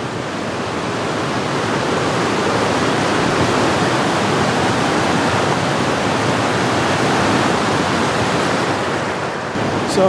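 Rushing river rapids: fast whitewater pouring over rocks in a river running high with rain and snowmelt. The sound is a steady rush that grows louder over the first few seconds.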